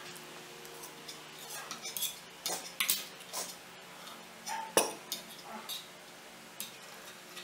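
Forks scraping and clinking against plates of noodles during eating: scattered short clinks, the loudest just under five seconds in.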